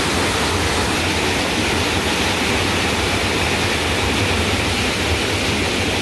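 Small waterfall in a mountain stream, a heavy flow of water pouring over rocks into a pool: a loud, steady rush of water.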